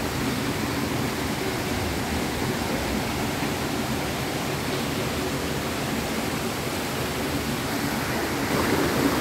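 Steady rushing of a fast, rocky mountain stream, a little louder near the end.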